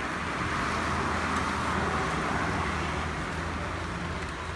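A vehicle passing on a wet road in the rain, its tyre hiss swelling to a peak about two seconds in and then fading.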